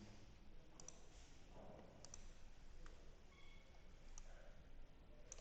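Faint computer mouse clicks, five or so single and double clicks spread unevenly across a few seconds, against near silence.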